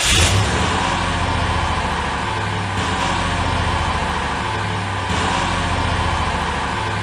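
Car engine running steadily, a little louder in the first moment, with slight shifts in tone about three and five seconds in.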